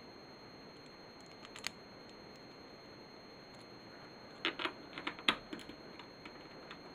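Small hard clicks and taps of LEGO plastic pieces being handled and set onto a baseplate: a single click about a second and a half in, then a quick run of several clicks a little past the middle, over a faint steady hiss.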